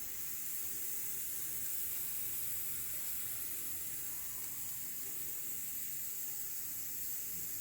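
Pressure cooker letting out steam in a steady high hiss, with no whistle yet.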